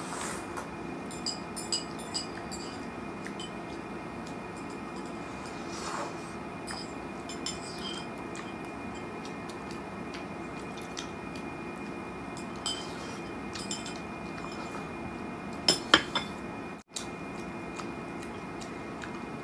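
Metal spoon clinking and scraping against a small plate while eating: scattered light clicks, a few sharper clinks about a second and two seconds in, and a louder pair near the end. A steady faint hum runs underneath.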